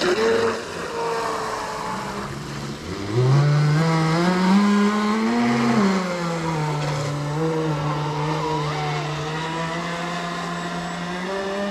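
Electric motor and propeller whine of a small RC aircraft in flight. Its pitch climbs for a few seconds, drops back, then holds steady as the throttle changes.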